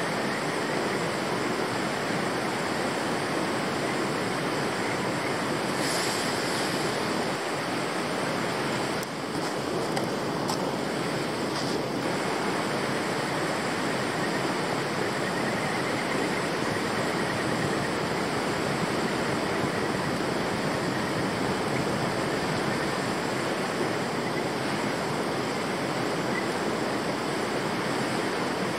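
River water flowing in a steady rush, with a few faint knocks about six to twelve seconds in.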